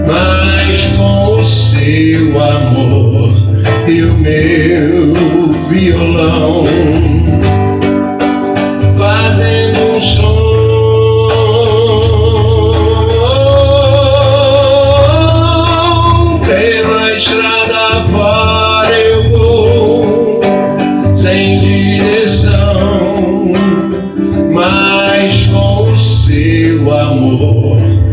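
A man singing while strumming an acoustic guitar, his voice wavering in vibrato on long held notes.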